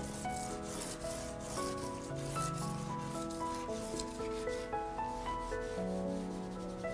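Charcoal scraped and smudged across drawing paper by a hand and a charcoal stick, with soft background music playing a slow melody of held notes.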